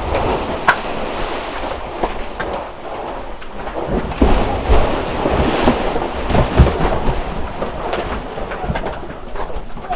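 Water splashing and sloshing as cattle plunge into and swim through a cattle dip tank, with irregular heavy splashes and wind buffeting the microphone.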